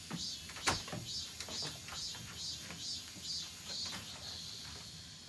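Insects chirping in a steady pulsing rhythm, about two and a half chirps a second, which fades out about four seconds in. Light footsteps on a wooden deck, with one sharp knock about 0.7 seconds in.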